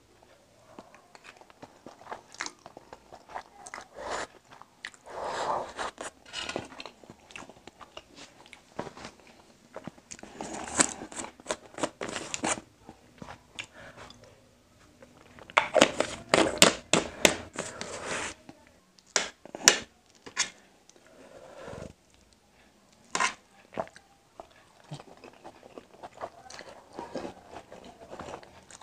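Close-up chewing and biting sounds of a person eating egg noodles with boiled egg, picked up by a clip-on mic on his shirt. It comes in uneven bursts of short crackly mouth sounds, loudest a little past halfway through.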